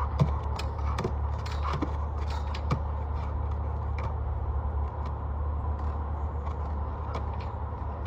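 Irregular sharp knocks and taps, several in a few seconds, as a dog jumps at a tetherball and knocks it around its pole, over a steady low rumble.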